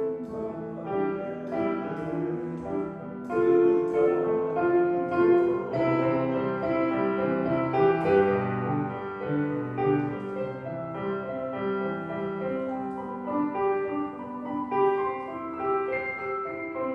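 A street piano played solo: a melody over held chords, one note following another at an unhurried pace.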